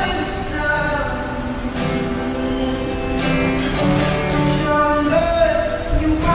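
Acoustic song: singing over strummed acoustic guitar, with sustained, gliding vocal notes.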